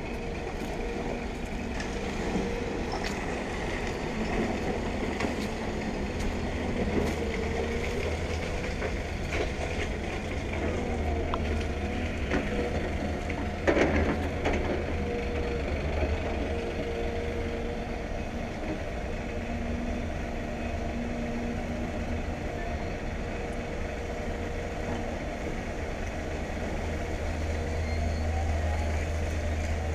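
Excavator engine running steadily, its drone rising and falling as it works, with one sharp loud knock about fourteen seconds in.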